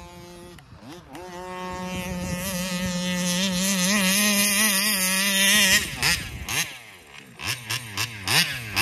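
Taylor 35cc reed-valve two-stroke engine of a large-scale RC car running at steady high revs and growing steadily louder. About six seconds in its pitch drops away, followed by a few short revs up and down near the end.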